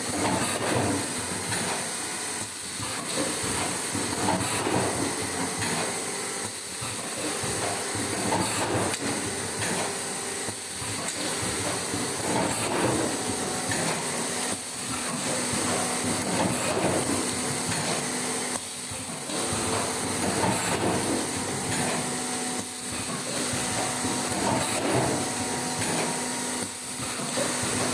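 Paper bowl moulding machine running: a steady hiss with mechanical clatter, its noise dipping briefly about every four seconds as it cycles.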